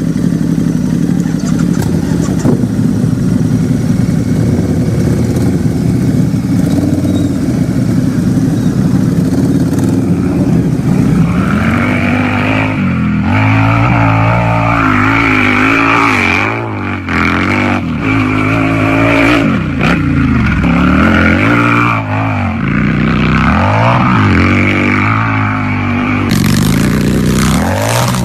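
Harley-Davidson V-twin motorcycle engine idling steadily, then revved up and let fall back several times from about halfway in.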